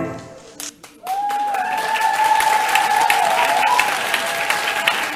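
The dance music's last note dies away, then about a second in an audience breaks into applause. Someone holds a long, high cheer over the clapping.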